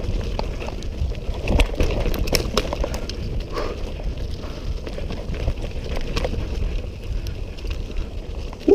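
Mountain bike rolling down a dirt trail: tyres on loose dirt and leaves, with the chain and frame rattling and clicking over the bumps and a steady rumble of wind on the microphone. A brief squeak right at the end.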